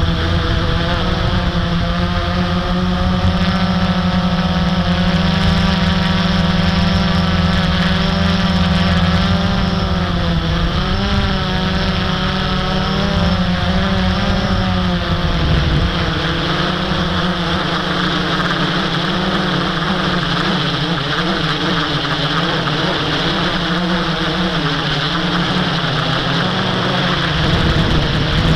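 Blade 350 QX quadcopter's four brushless motors and propellers running in flight: a layered hum whose pitch wavers and bends as the throttle changes, turning rougher and noisier about halfway through.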